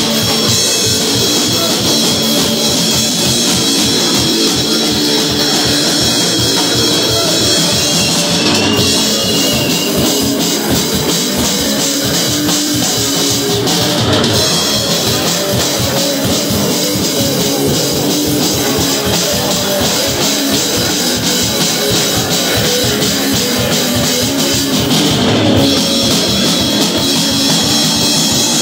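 Live punk rock band playing loud and without a break: distorted electric guitars over a pounding drum kit.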